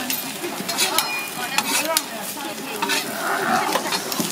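Roti flatbread and a slice of ham sizzling on a flat steel griddle, with metal tongs and a spatula clicking and scraping against the plate as the bread is turned.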